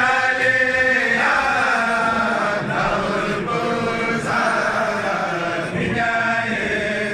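A group of men chanting a religious song together, unaccompanied, in long held notes that shift in pitch every second or so.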